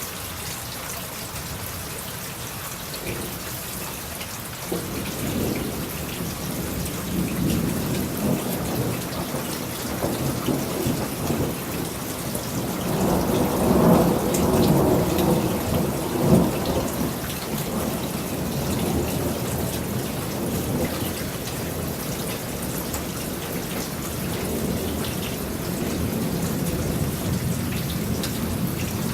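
Steady rain hissing down, with a long roll of thunder that starts about five seconds in, grows to its loudest around the middle, then eases into a softer rumble.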